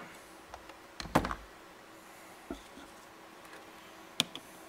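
A few sharp clicks and knocks of small objects being handled on a desk, the loudest cluster about a second in and another single knock near the end, over a faint steady hum.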